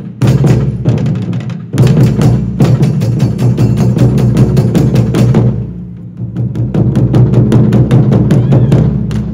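Japanese taiko drums played together in a fast, driving beat of many strikes a second. The playing eases briefly about six seconds in, then picks up again.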